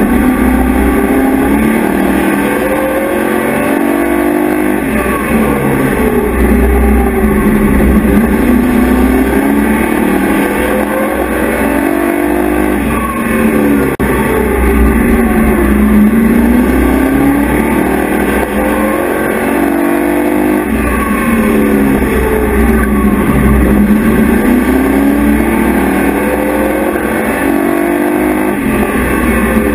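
Race truck engine heard from inside the cab at racing speed, its revs repeatedly climbing and falling, over a constant low rumble.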